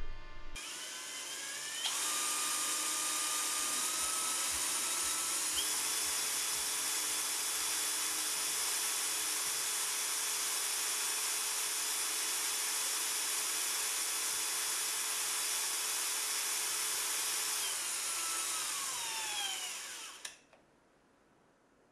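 Small electric motor spinning the encoder disk, with a high, hissy whine. It speeds up over the first few seconds, runs steadily, then winds down with falling pitch and stops near the end.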